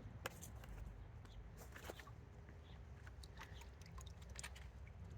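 Faint, scattered soft clicks and taps of small water-filled plastic balls being handled and dropped into a garden fountain, over a low steady rumble.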